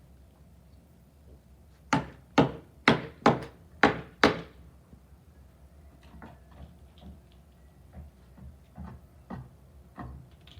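Hammering: six sharp hammer blows in quick succession, about two a second, followed by fainter scattered taps and knocks.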